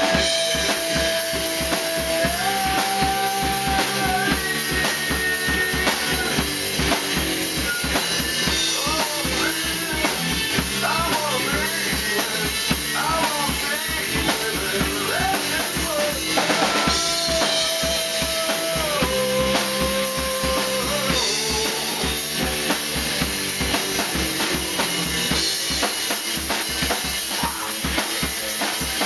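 A rock band playing live in a small room: a drum kit keeping a steady, dense beat under electric guitar, bass guitar and a singer's held and bending vocal lines, a 90s rock song at a steady, full level.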